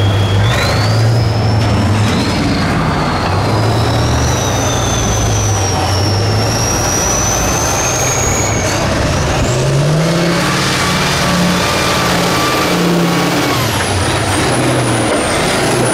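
Diesel engine of a 6x6 Tatra trial truck working hard as the truck crawls over steep dirt mounds, its note rising and falling and revving higher about ten seconds in. A thin high whistle glides up and down above the engine.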